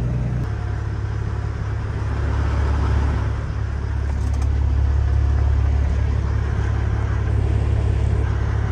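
Heavy diesel semi truck on the road: a steady low engine drone with road noise. The drone's character changes about half a second in.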